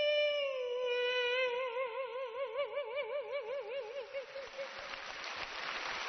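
A male singer in a woman's voice holds one long sung note that sinks a little in pitch, then swings into a wide vibrato and fades out about four and a half seconds in. Applause rises as the note dies away.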